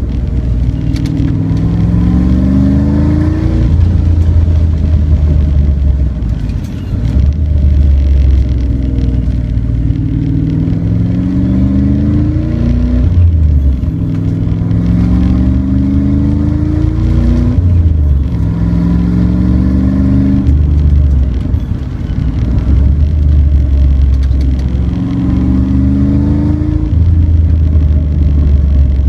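Car engine pulling hard through an autocross course. It climbs in pitch again and again as the car accelerates between cone sections, then drops back when the driver lifts or brakes.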